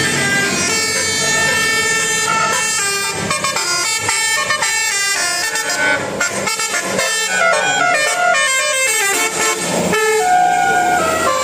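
Bus 'telolet' multi-tone air horn playing a melody of short notes that step up and down in pitch several times a second, over the noise of the vehicle.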